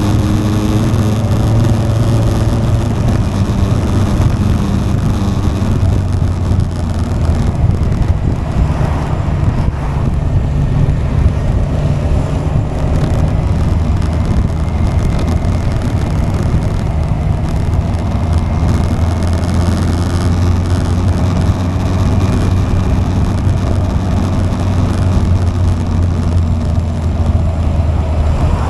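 Motorcycle engine running at a steady cruise, with wind and road noise, heard from a camera on the moving bike.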